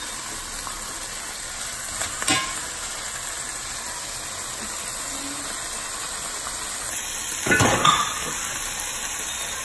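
Beef liver frying in oil in a metal pan, a steady sizzle. A fork clicks against the pan about two seconds in, and a louder clatter comes near eight seconds.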